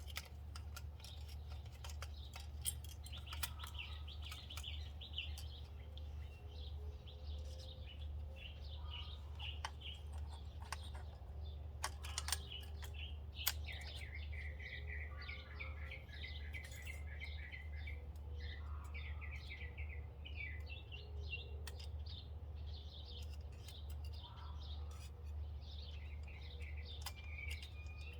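Small birds chirping and twittering on and off, with a few sharp clicks scattered through it and a steady low hum beneath.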